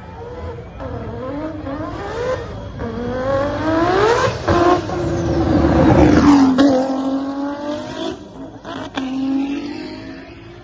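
Hill-climb race car accelerating hard toward the listener, its engine pitch climbing through several gears with a sudden drop at each upshift. It passes close by about six seconds in at its loudest, the pitch falling as it goes, then it pulls another gear and fades as it drives away up the hill.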